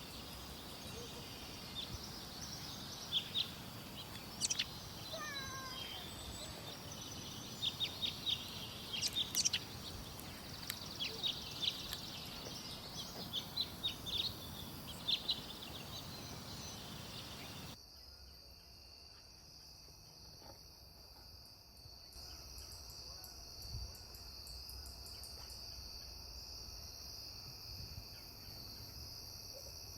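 Birds chirping in short calls over a steady, high-pitched insect trill. The chirps stop a little over halfway through, where the background noise suddenly drops, leaving only the insect trill.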